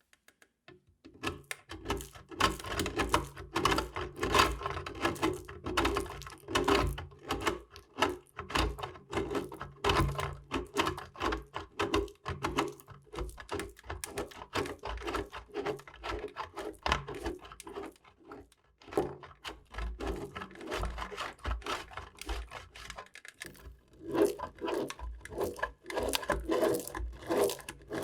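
Knife slicing through bars of soap: a continuous run of short scraping cuts, a few a second, with a faint steady hum underneath.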